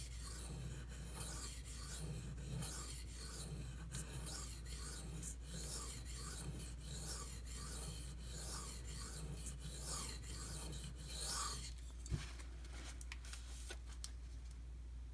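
Stainless knife blade stroked back and forth across the wet 1200-grit face of a Venev bonded diamond stone under light hand pressure: a rhythmic scratchy rasp on each stroke, giving plenty of feedback. The strokes stop about twelve seconds in, followed by a single knock.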